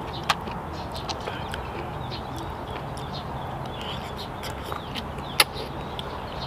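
Blood cockle shells being handled and prised open by hand, giving a few sharp clicks, the loudest about a third of a second in and near the end, between quiet sounds of eating the cockle meat.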